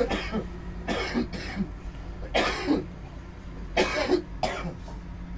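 A person coughing several times, the coughs mostly coming in twos close together.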